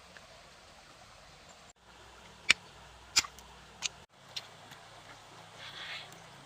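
Several sharp knocks, four of them spaced a little over half a second apart, over a steady hiss of flowing water, with a short rough scraping noise near the end.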